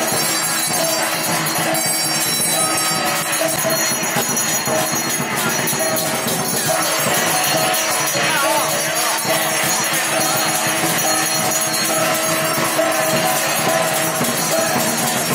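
Music with a steady jingling of small bells.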